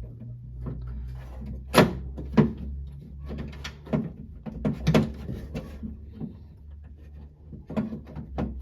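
Hand tools clicking and knocking against a 1966 Ford Mustang's door and door-handle hardware while the handle's retaining clip is pried loose. The knocks are irregular, the loudest about two seconds in, over a low steady hum.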